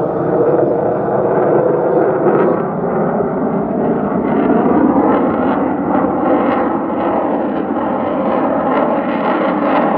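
F-35A Lightning II's single F135 turbofan jet engine in flight: a loud, steady jet rumble whose pitch drifts slowly as the aircraft moves.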